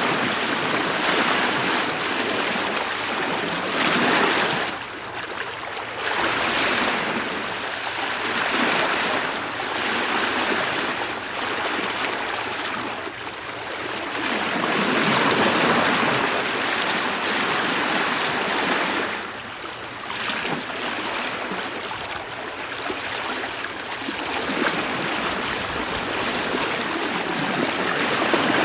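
Bow wave of a sailing ship under way at about 4 knots, heard from the bowsprit: a continuous rush and splash of water that surges louder and eases off every few seconds.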